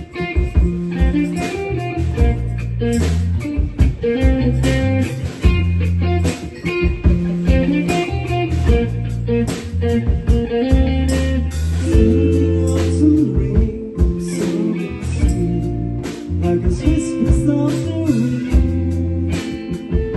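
Rock band playing a slow song, guitar over held bass notes and a steady drum beat, with no singing heard.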